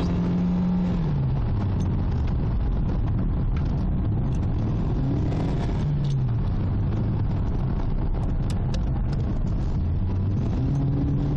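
Car driving fast over a steady bed of road and tyre noise, the engine note dropping about a second in, rising briefly around the middle, then falling again.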